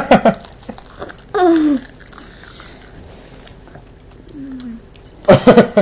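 Short bursts of laughter at the start and again near the end, with a wordless falling cry about a second and a half in and a fainter one later. The laughter and cries are reactions to mouthfuls of extremely sour candy.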